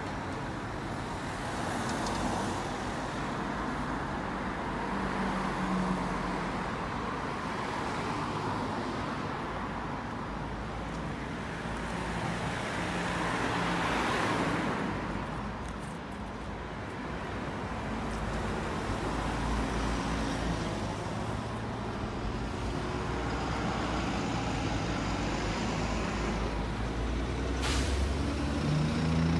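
Road traffic passing: cars and a van going by, then a double-decker bus's engine running close as it pulls past near the end, with a brief hiss just before.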